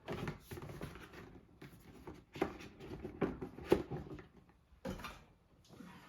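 Irregular knocks and clicks of objects being handled, about ten in a row, going quiet shortly before the end.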